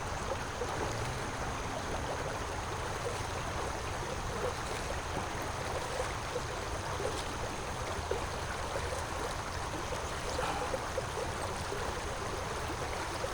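Shallow creek water running steadily over rocks, a low, even rushing with faint small splashes.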